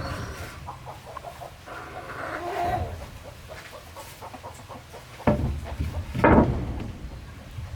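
Chickens clucking, then two loud knocks about five and six seconds in.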